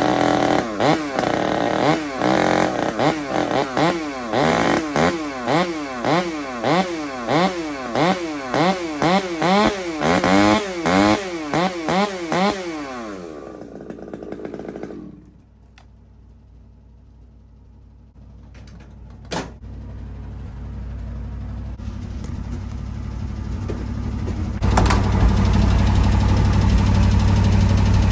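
Chainsaw revved over and over, its pitch rising and falling about once or twice a second, then dying away around 14 seconds in. Near the end an old pickup truck's engine starts and runs steadily, much lower in pitch.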